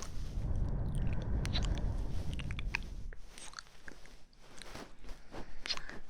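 Close-microphone ASMR trigger sounds: a low rumble for about the first three seconds, then scattered crackles and clicks.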